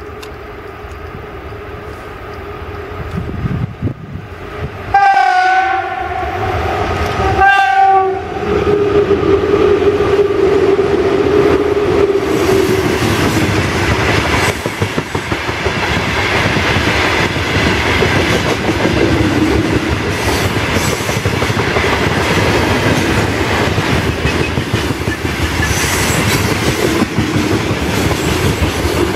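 VL11 electric locomotive hauling a freight train: its horn sounds twice, about five and seven and a half seconds in, each blast about a second long. The locomotive then passes close by and the wagons run past with a loud steady rumble and the clickety-clack of wheels over the rail joints.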